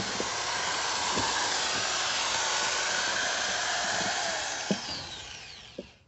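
Small handheld electric power tool running steadily at full speed, then switched off about five seconds in and winding down with falling pitch.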